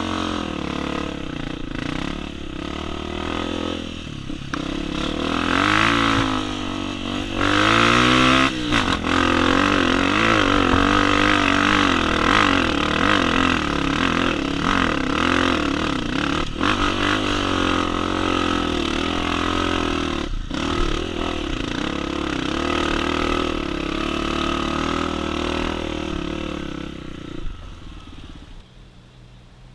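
Four-stroke Honda CRF dirt bike engine revving hard, its pitch rising and then dropping at a gear change about eight seconds in. It then holds at high revs under load and fades away near the end.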